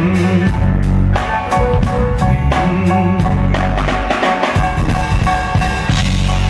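A band playing an instrumental groove during a sound check: drum kit with a steady bass drum and snare beat, under bass and guitar, with no vocals.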